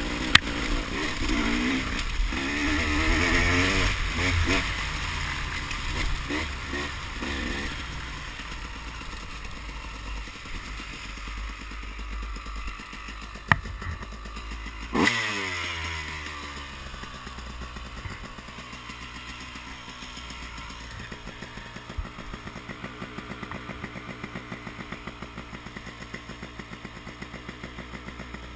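Dirt bike engine running on and off the throttle, revs rising and falling for the first several seconds. About halfway there is a sharp knock, then a quick rev that falls away, and the engine settles into a quieter, even low-rev putter.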